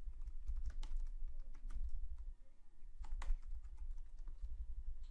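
Typing on a computer keyboard: a quick run of key clicks, with a short pause about halfway through.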